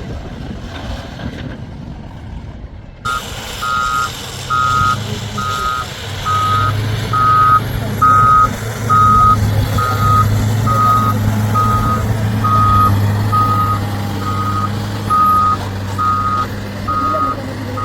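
A heavy vehicle's reversing alarm beeping, nearly twice a second, starting about three seconds in. A diesel engine runs steadily under it.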